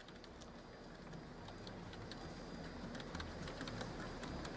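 Background room noise: a low rumble with scattered light clicks, slowly growing louder.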